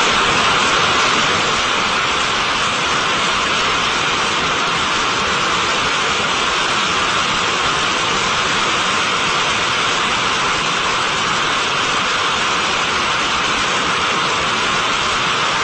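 Full-scale five-segment solid rocket motor burning in a horizontal static test firing: a loud, steady roar of rushing noise, strongest in the upper-middle range, easing very slightly about a second and a half in.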